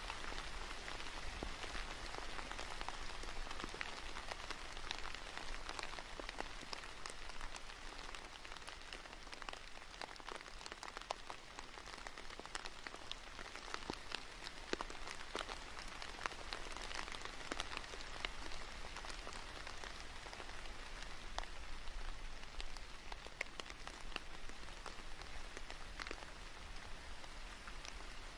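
Steady rain falling, with many separate drops tapping sharply close by.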